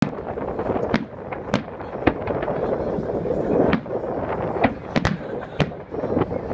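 Aerial firework shells bursting, about ten sharp bangs at irregular intervals, some only a few tenths of a second apart.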